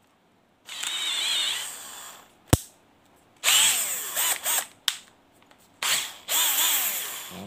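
Hilti cordless drill-driver run with no load in three short trigger pulls. Each time the motor whirs up and then winds down in pitch as the trigger is let go. There is one sharp click between the first and second runs.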